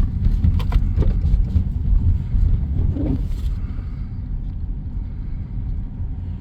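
Steady low rumble of a car driving slowly on an ice-covered road, heard from inside the cabin, with a few faint ticks about a second in.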